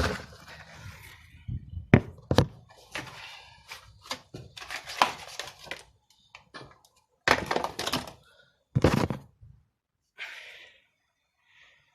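A box of a new shock absorber strut being opened and the strut handled: two sharp knocks about two seconds in, then several short rustling and scraping bursts.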